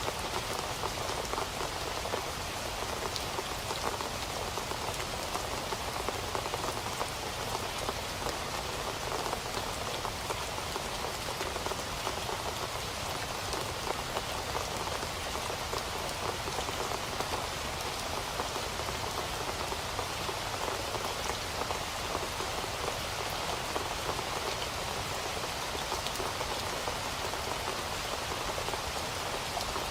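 Steady rain falling and pattering on hard surfaces, an even hiss full of fine drop ticks with no let-up.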